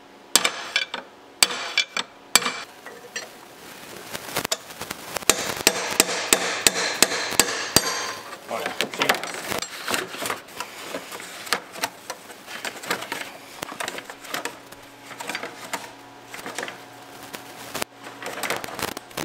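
A 3-pound sledgehammer strikes a pry bar set on a Duramax diesel's fan clutch, metal on metal, again and again, tapping it counterclockwise to vibrate the threaded fan clutch loose. A few heavy blows come first, then a fast run of strikes, then lighter, steady tapping.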